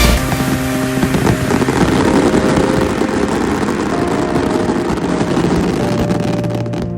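Dense crackling hiss of fireworks, with held notes of background music underneath; the crackle cuts off abruptly near the end.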